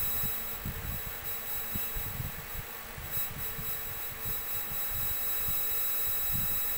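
Steady electrical buzz with a thin high whine from a powered-on CRT television, with irregular soft low knocks from handling.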